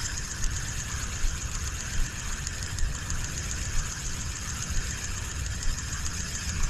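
Spinning reel being cranked steadily to retrieve a cast lure: a steady mechanical whir with soft regular pulses, starting just after the bail clicks shut.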